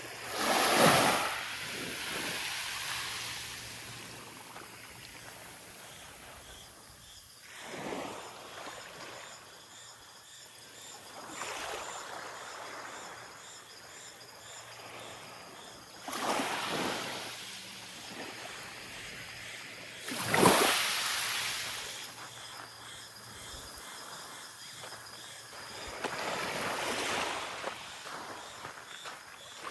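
Small waves breaking and washing up on a sandy beach, about six surges that each rise quickly and then fade away, with quiet surf hiss in between.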